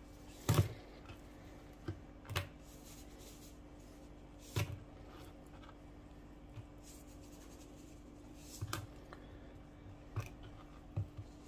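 Spice shaker and hands working dry rub into raw chicken drumsticks on a wooden cutting board: a handful of scattered taps and knocks, the loudest about half a second in, over a faint steady hum.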